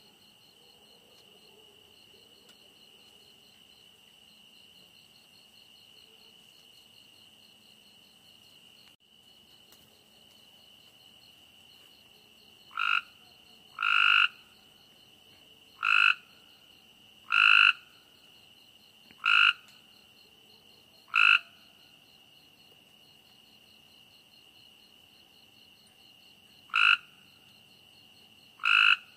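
A steady, high-pitched chorus of night insects chirring, then, from a bit under halfway in, a frog calling loudly in short single notes about every one and a half to two seconds: eight calls, with a pause of several seconds before the last two.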